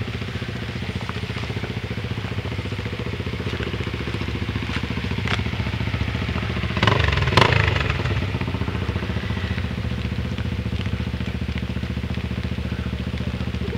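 Off-road trail motorcycle's single-cylinder engine running steadily with a fast, even pulse, with a brief louder burst about seven seconds in.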